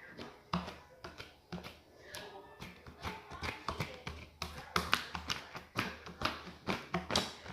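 Slime being mixed by hand on a table: a run of irregular taps and clicks, a few each second, busier in the second half.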